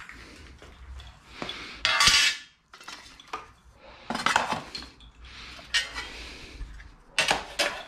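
Steel dash brackets and a plastic heater box being handled, clanking and rattling in several sharp bursts, loudest about two seconds in, again around four and a half seconds and near the end, with rustling between.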